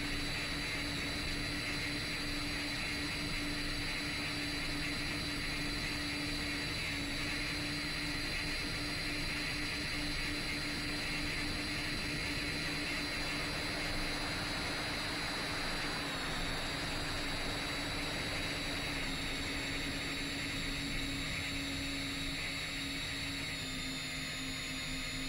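Motors and propellers of a 10-inch FPV drone in flight: a steady hum with a high whine over hiss, the pitch stepping down slightly about two-thirds of the way in and again near the end.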